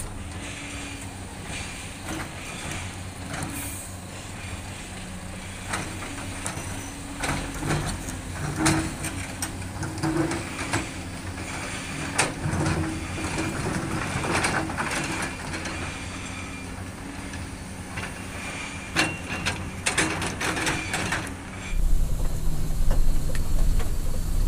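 Komatsu hydraulic excavator's diesel engine running steadily while its bucket handles boulders, with repeated knocks and clatters of rock against rock and steel. Near the end a louder, deeper vehicle engine rumble takes over.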